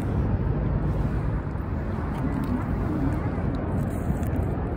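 Steady low outdoor rumble, with a few faint ticks in the second half.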